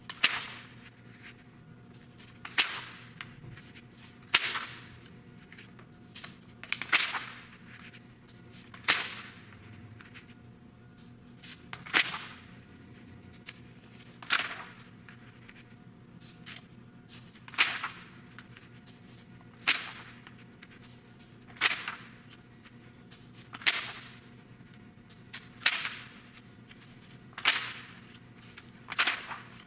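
Pages of a 1985 Art in America magazine turned one after another by hand, each turn a short, sharp flick of paper, about every two seconds.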